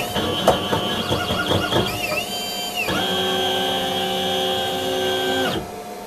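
Diamond-head engraving machine's motors whining in rising and falling tones with sharp ticks as it finishes the last strokes on a gold plate. Then a steady whine of several tones as the head travels away to its rest position, stopping about five and a half seconds in and leaving a fainter hum.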